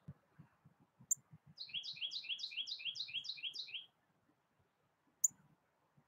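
A songbird sings a quick run of about nine repeated two-part notes, each sliding downward, over a bit more than two seconds. A single sharp chip note comes just before the song and another about a second after it.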